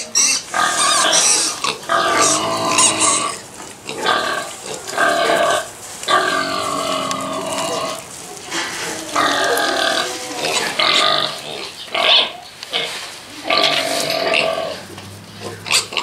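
Farm animals calling over and over: a string of loud, drawn-out calls, some gliding up and down in pitch, with short pauses between them.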